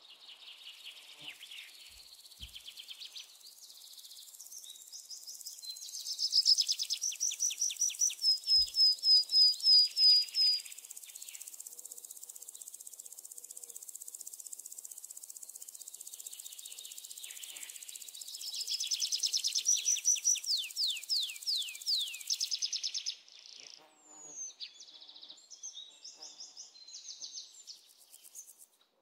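Songbirds singing in two loud spells of rapid, repeated trilled notes over a steady high insect buzz. The buzz cuts off suddenly about three-quarters of the way through, leaving scattered short bird chirps.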